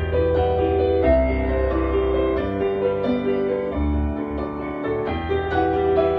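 Piano-led music with a heavy bass line, played through four Ground Zero GZHW 12 XSPL D1 12-inch subwoofers running in free air, without enclosures. The bass notes change about every second.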